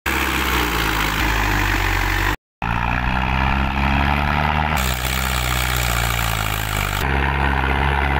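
Diesel engine of a Mahindra Arjun Ultra-1 555 DI tractor running steadily while hauling a trolley loaded with soil. The sound cuts out briefly about two and a half seconds in.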